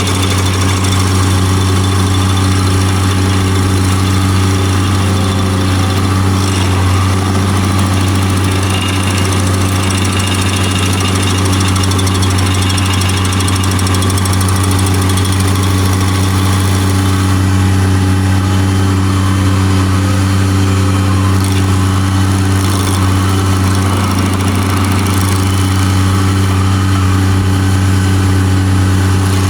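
Bobcat MT100 mini skid steer's engine running steadily, driving an SG30 stump grinder attachment during stump grinding.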